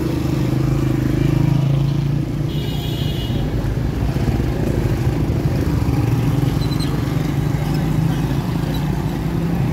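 Small motorcycle engines running as they pass close by in street traffic, a steady low hum. A brief high-pitched tone sounds about two and a half seconds in.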